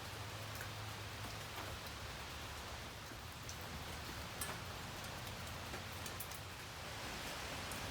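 Steady rain falling, with scattered individual drops ticking sharply over the even hiss, and a faint low hum underneath.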